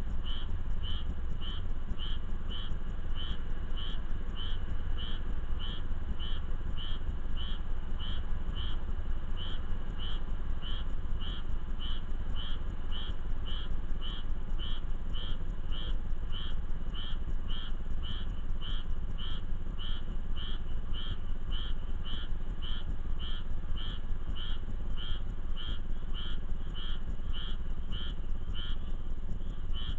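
A frog calling over and over, a short call about twice a second, over a steady low rumble.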